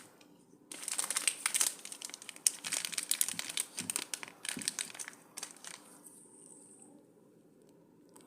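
Sweet wrappers crinkling in dense, crackly rustles for about five seconds, then dying away to faint room tone.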